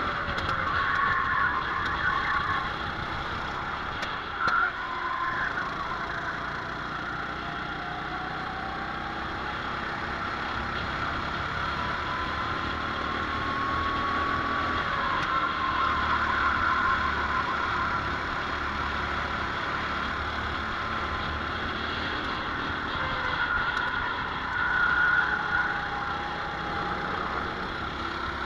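Go-kart engine heard from a camera mounted on the kart while racing, its pitch rising and falling repeatedly as the driver accelerates and lifts through the corners.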